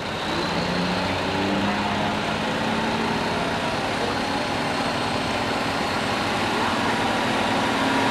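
Semi truck's diesel engine under heavy load pulling a weight-transfer sled, running hard and steady with its note stepping up about a second in and then climbing slowly as the truck gains ground.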